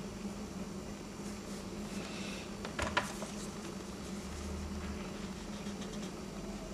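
Faint scratching of a black drawing pencil on paper over a steady low electrical hum, with a short louder click about three seconds in.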